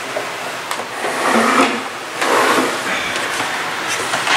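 Plastic parts of a sewing machine's embroidery unit being handled: scraping and sliding with a few sharp clicks and knocks.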